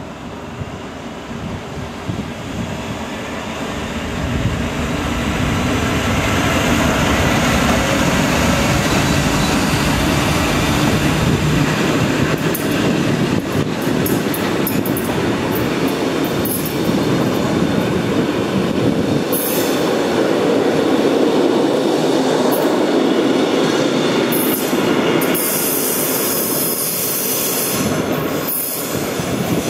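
BLS Re 4/4 electric locomotive and its GoldenPass Panoramic coaches rolling slowly past, the wheels squealing and clattering over the curved track and points. The rumble builds over the first few seconds and then holds, with sharp squeals coming often in the second half.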